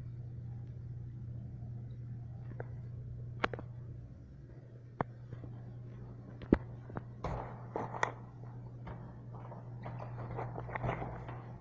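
A steady low hum of the restroom, broken by a few sharp clicks and knocks, then a run of rattling clatter over the last few seconds as a toilet stall door and its latch are handled.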